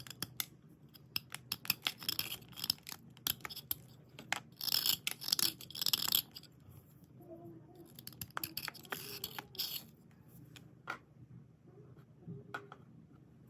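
Dry white slate pencils and pieces being scraped and rubbed by hand: crisp scratching strokes mixed with sharp clicks of slate knocking together, busy at first and thinning out after about ten seconds.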